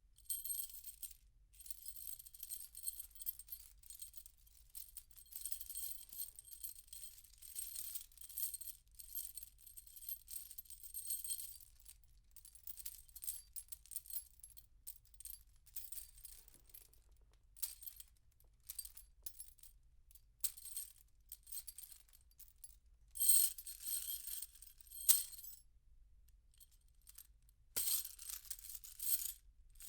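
Metal chain rattling and jingling as it is handled, in irregular bursts of clinking, heard from a medium distance. Louder shakes come about three-quarters of the way through and again near the end.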